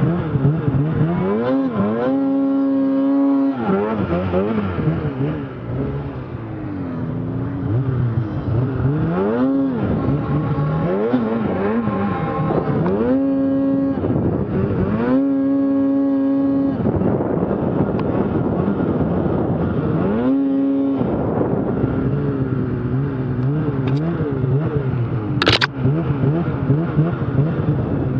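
Snowmobile engine revving up and down again and again, held at high revs for a second or two at a time while the sled works through deep powder snow.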